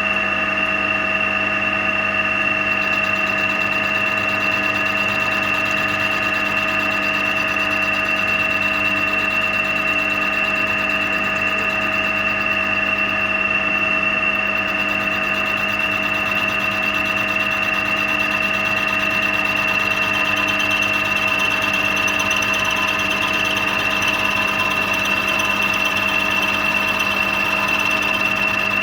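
Milling machine running steadily with a constant whine of several fixed tones, its slot drill cutting a radius in a steel block turned on a rotary table.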